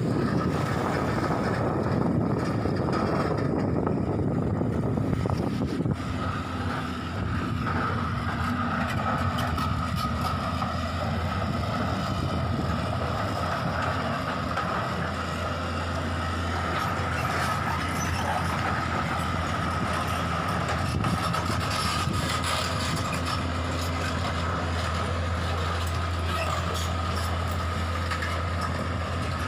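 Excavator's diesel engine running steadily under load, a low hum with a steady high whine over it from about six seconds in; the first few seconds are a rougher roar.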